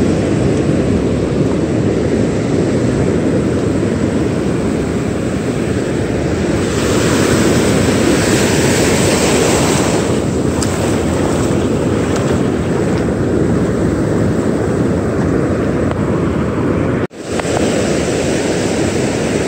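Ocean surf breaking and washing up the beach, with wind buffeting the microphone in a steady rumble; the sound cuts out for an instant near the end.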